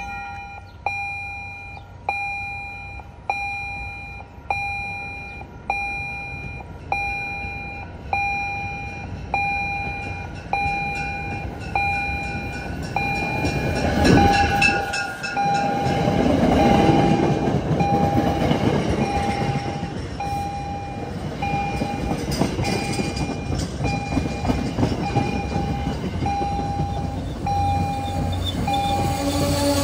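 A bell dings evenly about once a second while an MBTA commuter train pulls in and runs past close by. Its wheels and cars rumble loudest from about halfway through.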